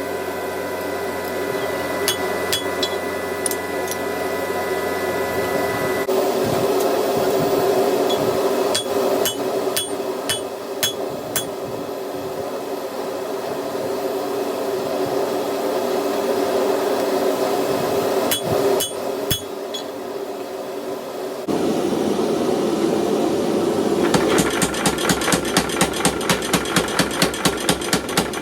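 Hammer blows on hot 5160 steel bar being forged, ringing sharply, over a steady rushing roar. The blows come one at a time at first, then about three-quarters of the way through become a fast, even run of about five blows a second.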